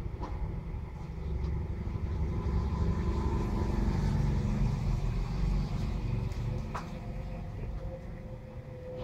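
Low steady background rumble with a couple of faint clicks.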